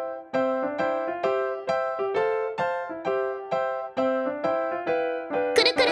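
Background music: an electric piano playing a melody of short, evenly spaced notes, with a brief high squeaky sound near the end.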